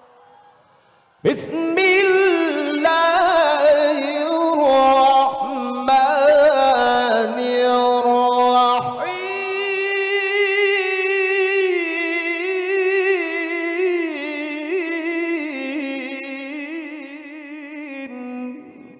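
A man reciting the Qur'an in the melodic mujawwad style into a microphone, in long melismatic phrases. It starts abruptly about a second in after a fading echo, breaks briefly about halfway through, and ends on a long held, wavering note that fades out.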